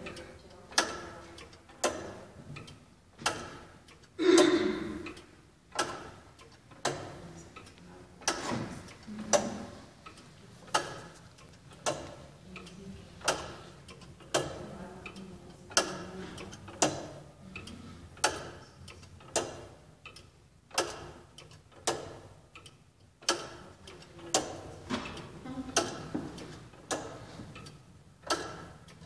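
Tower clock movement ticking steadily: its escapement beats about once every 1.2 seconds, each tick a sharp click with a short ring after it. One louder knock comes about four seconds in.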